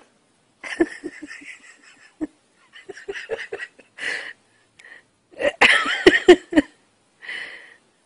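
A person laughing in several bursts: quick pulsed giggles about a second in, breathy laughs after, and the loudest fit of laughter around six seconds in.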